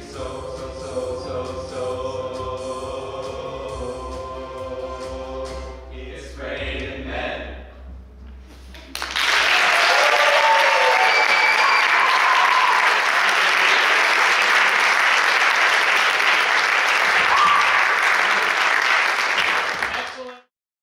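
Six male voices singing a cappella, ending their song about seven seconds in. About nine seconds in, the audience breaks into loud applause with a few whoops, which cuts off abruptly near the end.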